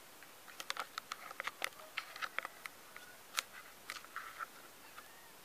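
A kitten playing with a thin twig on bare dirt ground: irregular light clicks and scratches of the twig and the kitten's paws on the ground, and of the kitten biting at the twig. The loudest click comes about three and a half seconds in.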